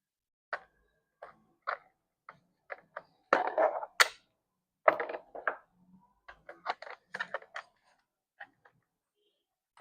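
A string of separate clicks, knocks and handling clatter from an Umarex HK MP5 K PWD CO2 airgun and a CO2 cylinder being handled. A longer scraping handling noise comes about three seconds in and ends in a sharp click, and a louder knock follows about a second later.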